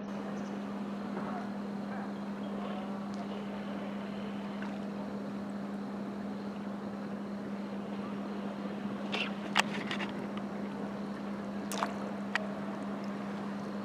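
A steady, even motor hum over an outdoor background hiss, with a few sharp clicks about two-thirds of the way through.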